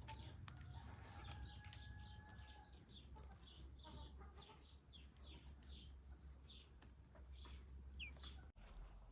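Faint high bird chirps repeating about three times a second, over a low steady hum.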